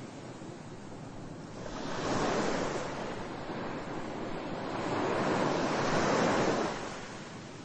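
A rushing wash of noise like surf on a shore, swelling up twice, about two seconds in and again from about five to six and a half seconds, then easing back.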